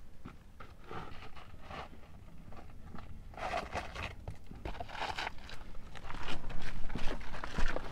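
A hiker's footsteps crunching on a gritty, rocky trail, a step about every half to one second, faint at first and getting louder from about three seconds in.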